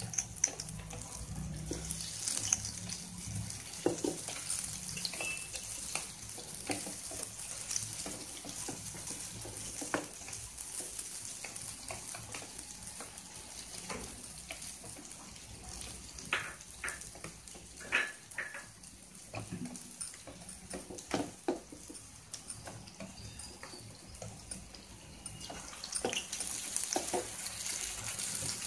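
Urad dal bondas deep-frying in hot oil in a kadai: a steady sizzle with scattered sharp pops and clicks, as fresh balls of batter are added to the oil.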